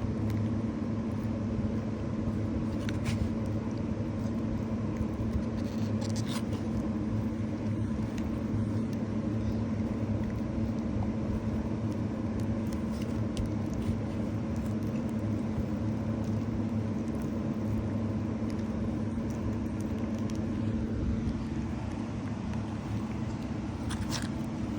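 A steady low mechanical hum holding a constant pitch, with a few faint clicks.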